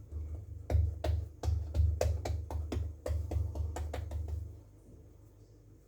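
Hands folding and pressing the sealed edges of a stuffed paratha's dough on a rolling board: a run of irregular soft knocks and taps, about two to three a second, that stop about four and a half seconds in.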